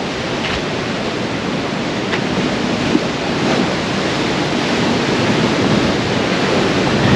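Seawater surging through a coastal blowhole: a steady, loud rushing of surf that swells a little toward the end.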